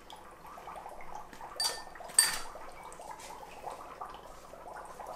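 Dry ice bubbling and fizzing rapidly in glasses of water as it sublimates, a dense gurgling patter. There are two sharp clinks about two seconds in, the loudest sounds, as chunks of dry ice strike the glass.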